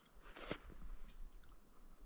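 A single soft crunch of a boot step in snow about half a second in, followed by faint rustles.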